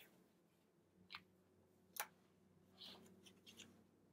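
Near silence with a few faint clicks and light rustles as a hardback picture book is handled, spaced roughly a second apart.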